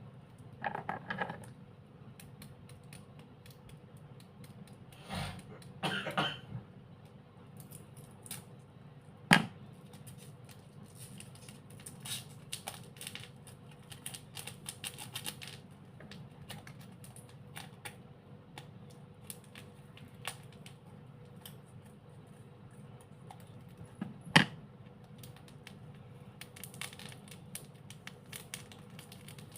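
Irregular small clicks and taps from handling slime and its container, with two sharp knocks, about nine seconds in and again about twenty-four seconds in.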